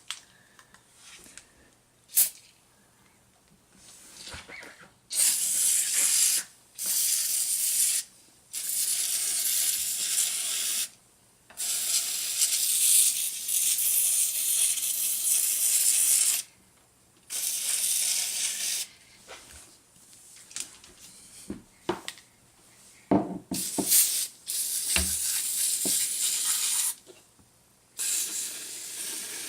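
Aerosol can of Nu-Calgon Evap No Rinse foaming coil cleaner spraying as a jet into refrigerator coils, hissing in repeated bursts of one to five seconds with short pauses between, and a few light knocks midway.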